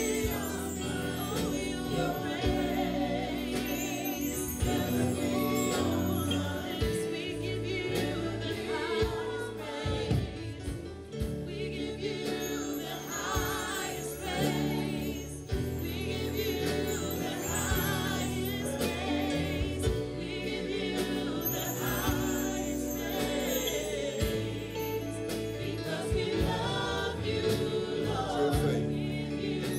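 Live gospel worship music: several singers with a band of drums, bass guitar and keyboard, with a steady bass line and cymbal strokes.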